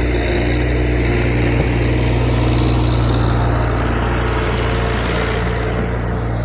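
John Deere backhoe's diesel engine running steadily.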